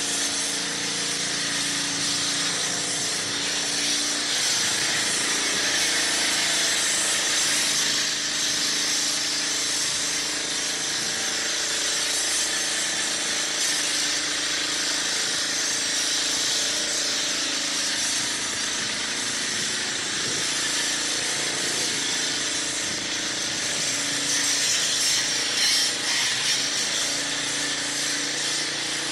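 Electric sander running steadily, a continuous whirring hiss of abrasive on a surface over a faint motor hum.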